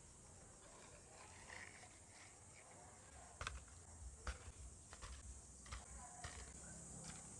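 Near silence with a few faint, soft knocks about a second apart from a little past halfway: dragon fruits being set down on a woven bamboo tray.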